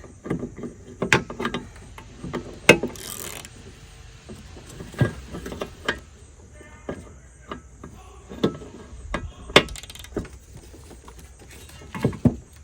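Irregular metallic clicks and clanks of a socket wrench being worked on a 15/16 spindle nut that will not loosen, too tight to break free without a breaker bar.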